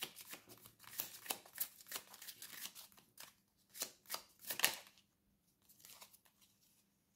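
Tarot cards being shuffled and handled, a quick run of papery card flicks for about five seconds, thinning to a few faint ones near the end.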